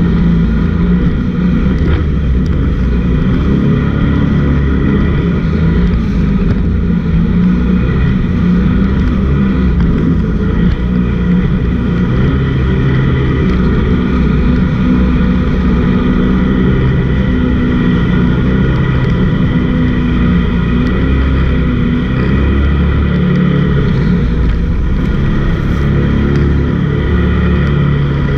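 Jet boat's engine running loud and steady under way.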